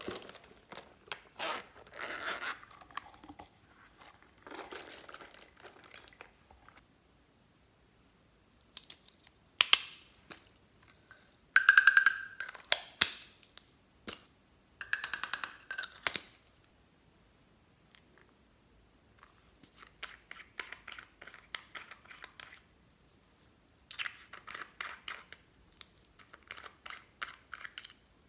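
Glitter, sequins and confetti shaken and tapped out of small plastic containers onto slime in a glass bowl. The sound comes as repeated bursts of quick rattling and tapping, with short pauses between them.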